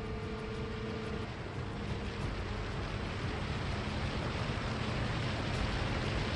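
Homemade light aircraft in flight, heard from a camera mounted on the plane: a steady engine drone under a loud rush of wind, growing slightly louder.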